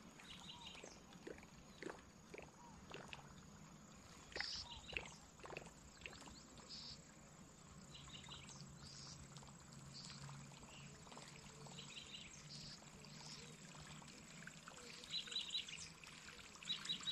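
Faint outdoor ambience: short, high chirping calls recurring every few seconds, with scattered soft clicks and light water sounds.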